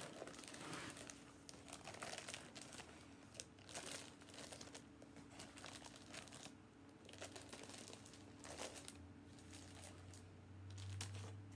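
Clear plastic sheeting crinkling faintly in irregular bursts as hands press and smooth it, with a soft half-cured resin sheet on it, down over an upturned bowl.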